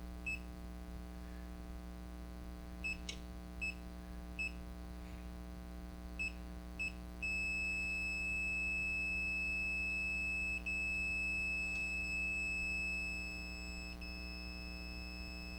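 Continuity-tester beep of a multimeter checking the radio's tuning capacitor: several short beeps, then one steady beep held for about seven seconds. The beep signals a short, the capacitor's plates touching as they are moved.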